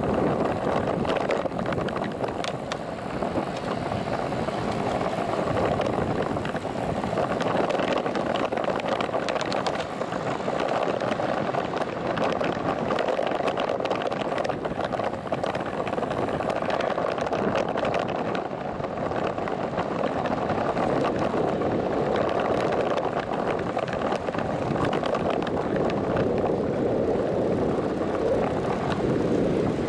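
Steady rushing wind over the microphone and road noise from a bicycle riding along town streets, with scattered small clicks and rattles.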